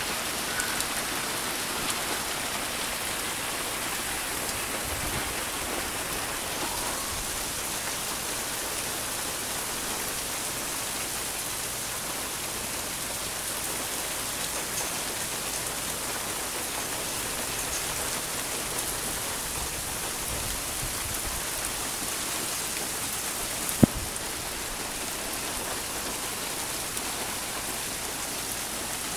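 Hail and rain falling in a steady, dense patter, with a single sharp knock near the end.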